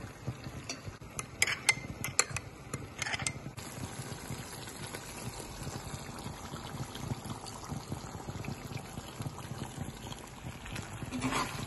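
Kadai chicken gravy simmering in the pan, a steady soft bubbling and crackle. Between one and three and a half seconds in there are a few light clinks of a steel spoon against a glass jar of cream.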